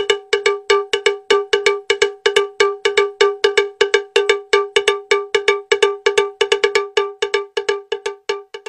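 A cowbell-like metal tone struck rapidly and evenly, about six strokes a second, each stroke a short bright ring.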